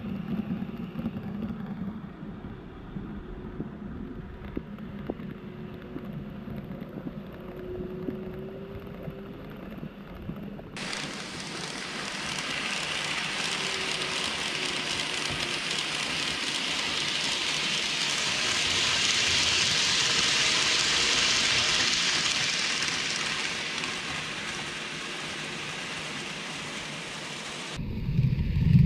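N gauge model train (KATO 117 series) running along the layout's track: a low rolling rumble of its wheels and motor. About ten seconds in it switches suddenly to a hiss that swells as the train passes close and then fades. Near the end a louder, deeper rumble starts.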